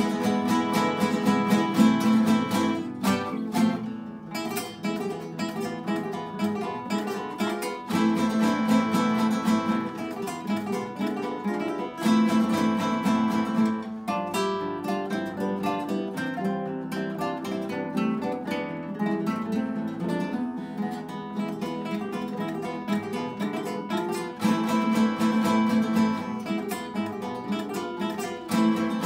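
Ensemble of nylon-string classical guitars playing a Spanish pasodoble together, with strummed chords and plucked melody. The playing swells louder near the start, again about a third of the way in and near the end, and is softer in between.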